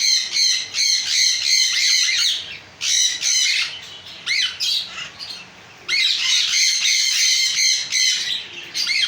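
Many caged birds chattering with shrill squawks and chirps, in loud spells with a quieter lull in the middle.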